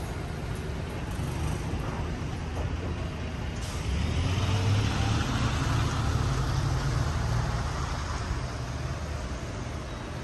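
Street traffic with a heavy road vehicle passing. A sudden hiss starts just before four seconds in, then a low engine rumble swells and fades away toward the end.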